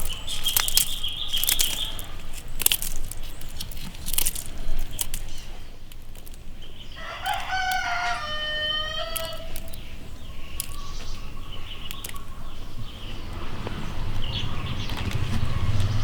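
A chicken calling, with one long crowing call about seven seconds in, among scattered clicks and rustling.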